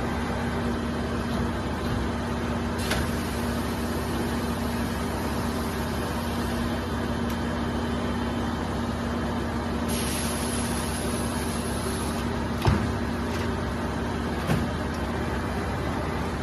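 Richpeace two-beam double-head automatic sewing machine running, a steady mechanical din with a constant hum. A few sharp knocks come through, the loudest about twelve seconds in, and a hiss lasts about two seconds around the middle.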